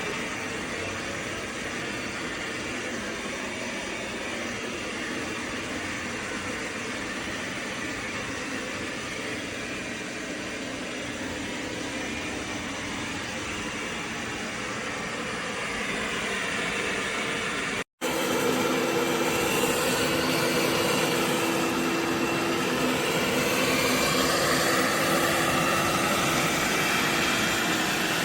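AIRROBO T20+ robot vacuum cleaner running with a steady whir. A brief break about two-thirds of the way through, after which it is a little louder with a steady hum and slowly shifting pitch.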